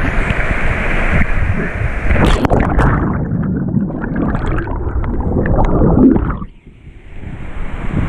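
Waterfall rushing up close to the microphone, a loud, steady roar of falling water that dips briefly about six and a half seconds in, then comes back.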